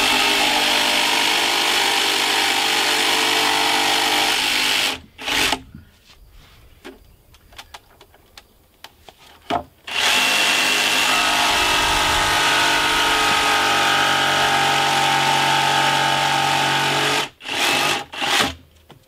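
Cordless jigsaw cutting through a treated-lumber stair tread in two long runs, about five and then about seven seconds, with a short blip of the motor between them and two brief bursts near the end.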